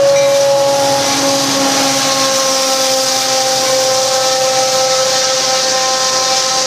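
Union Pacific diesel freight locomotives approaching and passing with the horn held, a steady chord of several notes that sags slightly in pitch as they go by. Under it runs the hiss and rumble of the train rolling on the rails.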